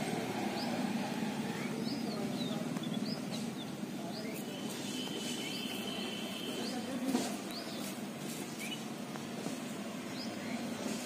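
Small birds chirping, many short rising and falling calls scattered throughout, over a steady low hum.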